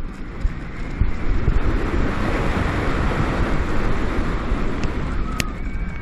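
Rushing wind on an onboard camera's microphone, with the running of a B&M wing coaster's train on its steel track at speed. It swells about a second in and eases near the end, with one sharp click shortly before the end.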